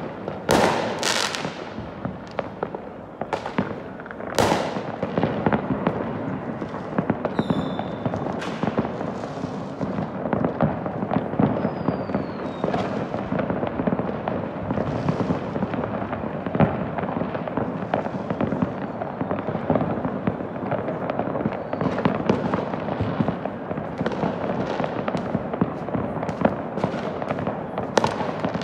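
New Year's fireworks and firecrackers going off all over a city: a dense, continuous crackle of many distant bangs. Several sharper, louder bangs come in the first few seconds, and a falling whistle sounds about seven seconds in.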